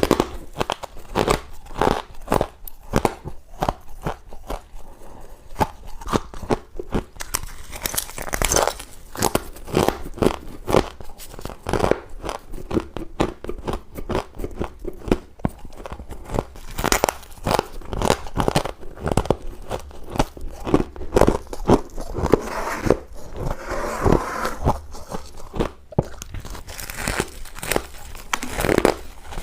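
Close-miked biting and chewing of chunks of freezer frost ice: a dense, irregular run of sharp crunches, a few each second.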